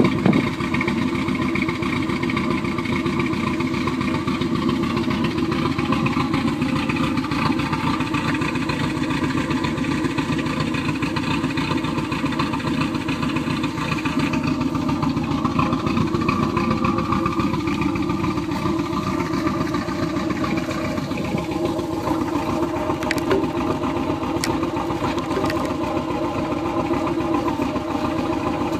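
1992 Volvo 245's four-cylinder engine, fitted with an RSI A cam, idling steadily through a Flowmaster muffler with extra straight pipe. The idle sounds an awful lot like a V8.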